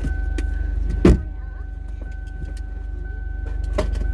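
Car engine idling, heard from inside the cabin, with one loud thump about a second in and a softer click near the end.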